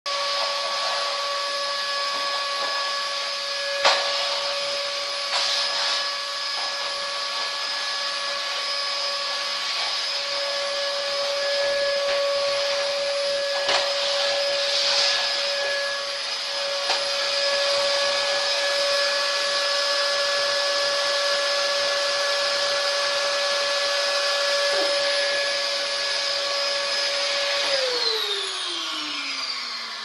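Vacuum cleaner running steadily, a motor whine with a dense rush of air, with a few brief knocks. About two seconds before the end it is switched off and the whine falls in pitch as the motor spins down.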